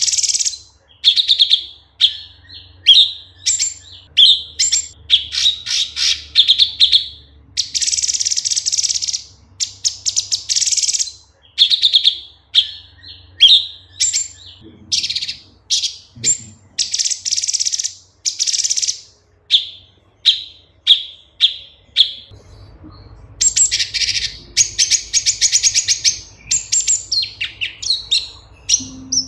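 Cucak cungkok (orange-bellied leafbird) singing a loud, fast, varied song: sharp high chirps, rapid trills and short phrases follow one another with brief pauses. There are a few sparser seconds late on, then a dense burst of rapid trills.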